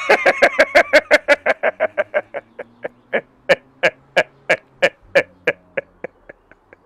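A man laughing hard: a long run of rhythmic 'ha' pulses, quick at first, then slowing and fading toward the end.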